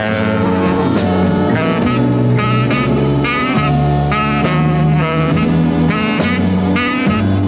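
Jazz big band playing a blues: tenor saxophone and brass horns repeating short riffs with a wavering vibrato over a bass line and rhythm section.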